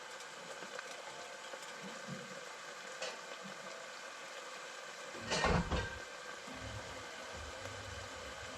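Venison and frozen vegetables sizzling and steaming in a covered pan: a steady frying hiss. A brief louder clatter about five and a half seconds in.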